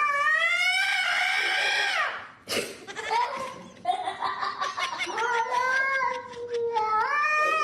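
A cat yowling in long drawn-out calls. One rises and falls over about two seconds, a longer one wavers in pitch, and a third starts to rise near the end.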